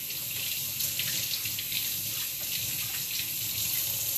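Kitchen faucet running steadily into the sink, with hands being washed under the stream.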